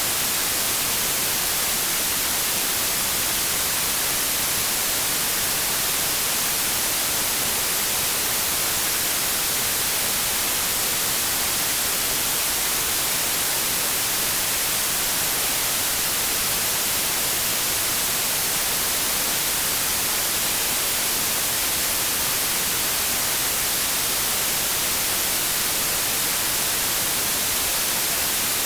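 Off-air television static: a steady, even hiss of white noise, strongest in the treble, with no change from start to finish.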